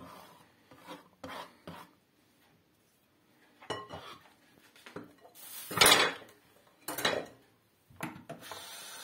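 A knife scrapes diced aubergine off a wooden cutting board into a ceramic bowl, with scattered knocks and clatters of board and bowl; the loudest scrape comes about six seconds in. Near the end a kitchen tap starts running.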